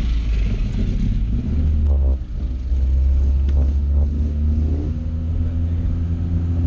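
Honda B16B four-cylinder VTEC engine in a classic Mini, running at low revs as the car drives off. The engine sound dips briefly about two seconds in, then carries on steadily.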